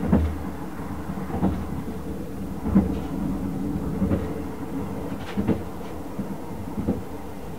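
A 24 series sleeper-train passenger coach running, heard from inside: a steady low rumble with the wheels clacking over the track joints about every second and a half.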